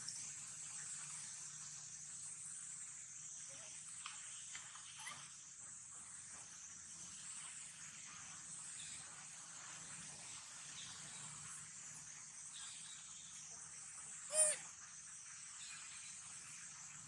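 Steady high-pitched insect drone, with a few faint short calls and, about fourteen seconds in, one loud brief cry from a baby monkey that sweeps down sharply in pitch.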